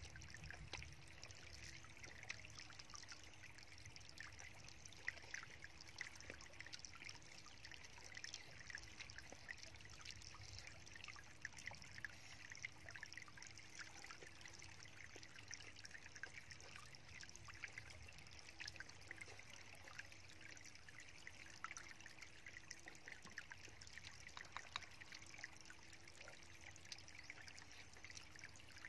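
Faint, steady trickle of water from a small stream, with scattered small clicks over it.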